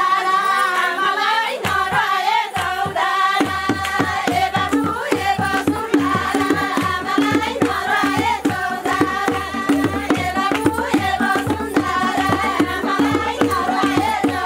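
A group of women singing a folk dance song together, with a quick, steady drum beat coming in after about two seconds.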